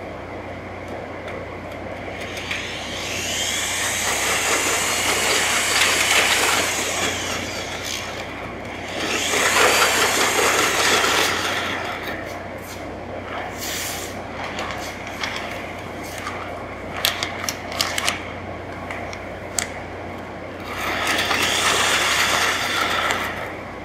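Corded electric drill with a paddle mixer running in three bursts of a few seconds each, churning grout in a plastic bucket, with a few sharp knocks between the second and third bursts.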